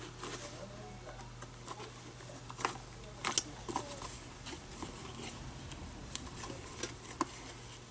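Lace being pulled and tightened with pliers through the leather of a baseball glove: scattered rubbing, creaking and small clicks, the sharpest about two and a half and three and a half seconds in. A steady low hum runs underneath.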